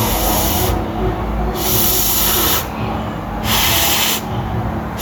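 Food sizzling in a hot wok or pan, heard as three separate bursts of hissing, each about a second long, over a steady low hum.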